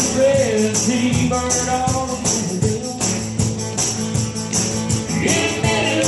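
Live acoustic country band playing: an acoustic guitar with steady jingling percussion on the beat, and a sung melody that breaks off and comes back about five seconds in.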